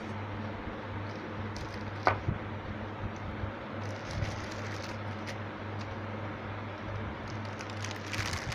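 Plastic clicks and knocks of a mixer grinder jar being set onto its base and twisted tight, with one sharper click about two seconds in, over a steady low hum.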